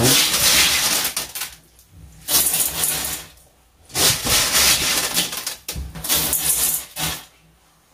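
Handfuls of washed dried pinto beans scooped from a wire-mesh strainer and dropped into a stainless steel pot, rattling and clattering in about four bursts with short pauses between them.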